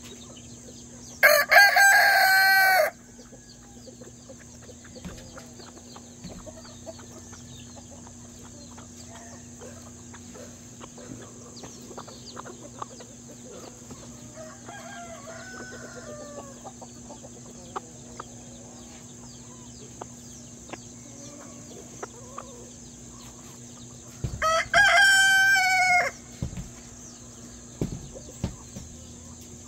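Rooster crowing twice, once about a second in and again near the end, each crow about a second and a half long; the flock clucks quietly in between.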